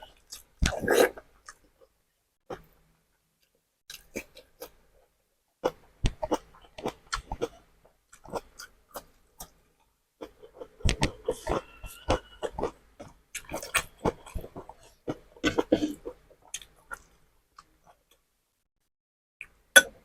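Close-miked chewing and wet mouth sounds of someone eating beef tapa and egg, in irregular bursts of smacking and clicking with short pauses between mouthfuls.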